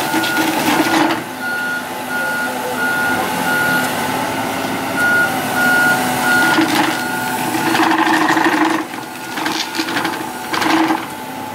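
Heavy equipment's backup alarm beeping, a single high tone repeating at an even pace over a running diesel engine, with several louder surges of machine noise.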